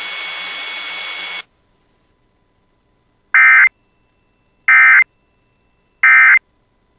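Emergency Alert System end-of-message signal: three short, loud bursts of shrill digital data tones, about 1.3 seconds apart. Before them, a hiss cuts off about a second and a half in.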